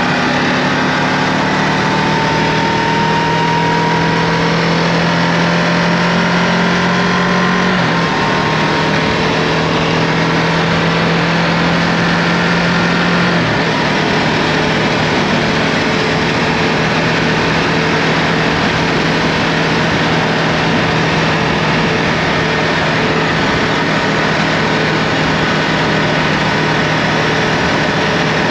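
Ducati Multistrada V2S's V-twin engine running at a steady cruising pace on the move, with a dense rush of noise under it. The engine note holds fairly steady, creeping up at first and shifting slightly in pitch about eight seconds in and again about thirteen seconds in.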